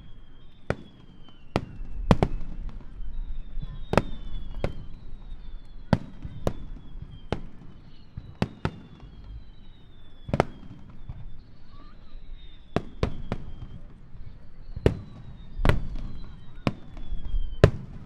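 Starmine fireworks display: a rapid, uneven run of sharp shell bursts, about one to two a second, with high whistles falling in pitch between them.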